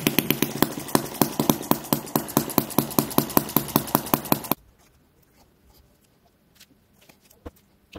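A 1 cc model sideshaft engine running with a steady, even beat of about six or seven strokes a second, then cutting off suddenly about four and a half seconds in. After that only a few faint small clicks.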